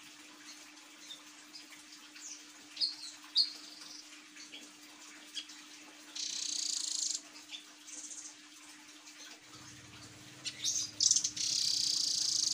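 Blue nuthatch calling: scattered short high chirps, then two fast, high trilled rattles, the first about six seconds in and the second, the loudest, from about eleven seconds in. A faint steady hum runs underneath.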